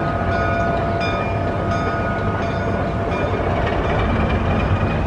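Steady low mechanical rumble with a faint held hum over it.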